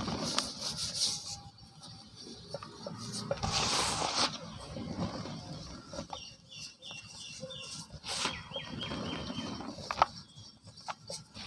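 Dry cement powder rubbed, squeezed and sifted through bare hands in a tub: soft gritty rustles and crumbling pours, with the loudest pour about four seconds in.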